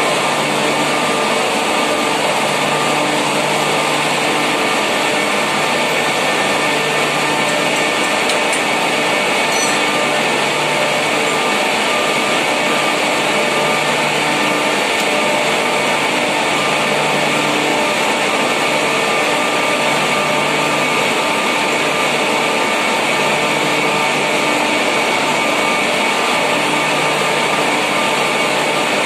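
Steady mechanical drone of running machinery, a whirring noise with several steady hum tones in it, and a low hum that pulses on and off every second or two.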